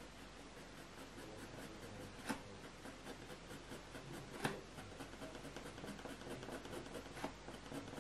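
Graphite pencil scratching lightly over hot-press watercolour paper in quick short strokes, with a few sharper ticks, the clearest about two and four and a half seconds in.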